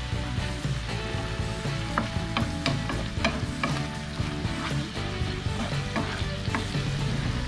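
A wooden spatula stirs cubed potatoes, sweet potatoes and mushrooms in a frying pan, making irregular knocks and scrapes against the pan over the sizzle of the simmering adobo sauce.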